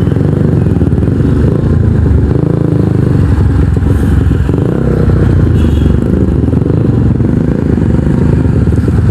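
Kawasaki NS150's single-cylinder engine running through an aftermarket Akrapovic exhaust, a steady, loud low exhaust note from the bike on the move.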